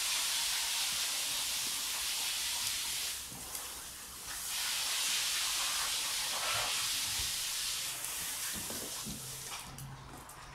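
A steady, fairly loud hiss. It drops off briefly about three seconds in, then fades and stops near the end.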